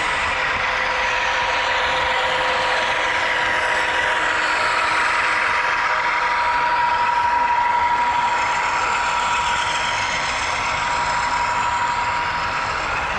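Sound-equipped HO scale diesel locomotives running, their LokSound decoders playing diesel engine sound through small onboard speakers. It is a steady whine over a hiss, slightly louder around the middle.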